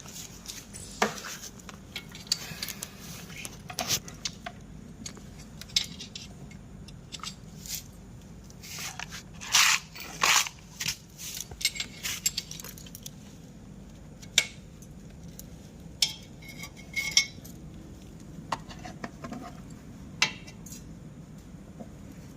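Metal hand tools clinking and scraping against each other and on metal parts of a motorcycle, in irregular sharp clicks, busiest about ten seconds in.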